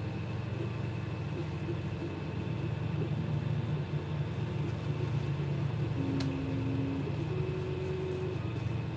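Creality Ender 3D printer running as it lays down a first layer: stepper motors humming in short tones that shift in pitch as the print head changes direction, over the steady whir of its cooling fans. One sharp click about six seconds in.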